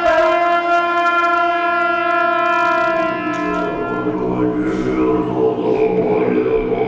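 A long, reedy, held tone from a Tibetan monastic wind instrument that fades out over the first three or four seconds. About three and a half seconds in, deep-voiced Tibetan Buddhist chanting by the monks takes over.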